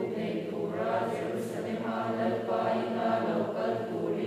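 A church congregation of men and women voicing together in unison from their books, many voices in one continuous, even cadence.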